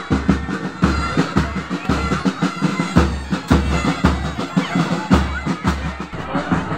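Pipe band playing a march: bagpipes sounding a held melody over snare drums, with a steady bass drum beat about twice a second.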